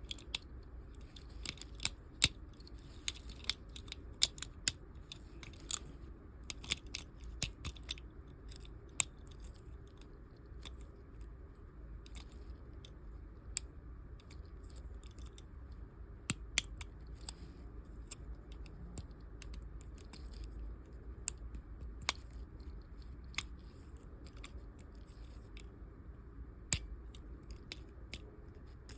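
Lock pick and tension wrench working in the keyway of a Master Lock 410 lockout padlock: small irregular clicks and scrapes as its pins are single-picked, over a faint steady hum.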